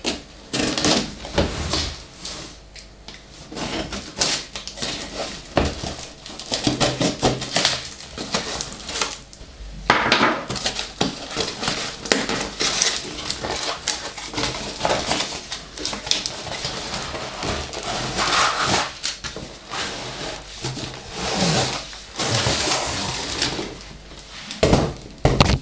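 Long cardboard parcel being cut and torn open by hand: packing tape and cardboard tearing, scraping and rustling in irregular bursts with sharp knocks and clicks, then the packed feeder rod in its case, held by foam spacers, pulled out of the box.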